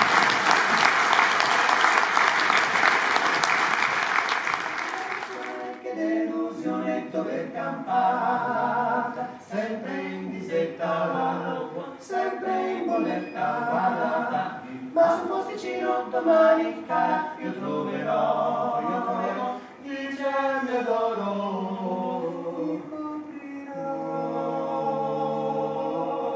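Audience applauding for about five seconds, then a male vocal trio singing in close harmony, several voices at once.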